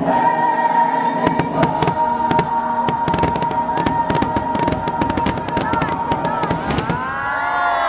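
Fireworks display finale: a rapid barrage of bangs and crackles over the show's music, which holds one long note. About seven seconds in the bangs stop and the crowd starts cheering.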